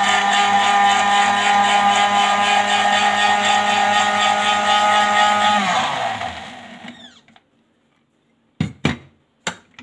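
Countertop blender blending fennel and ginger with water, its motor running at a steady high speed. It is switched off about six seconds in and the motor spins down, its pitch falling, then a few sharp knocks near the end.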